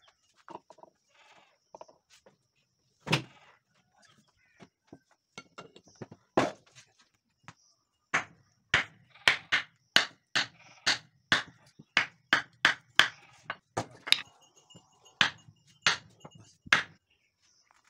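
Hammer blows on a wooden block set on top of a steel spindle arbor, driving the shaft down into its bearings in the housing. A few separate strikes come first, then a steady run of about two blows a second.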